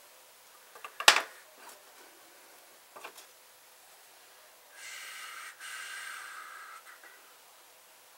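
A sharp wooden knock as a cedar strip is set down on the bench, a couple of lighter clicks, then about two seconds of hissing, squeaky sputter from a squeezed wood glue bottle as glue and air are forced out of the nozzle, with a short break in the middle.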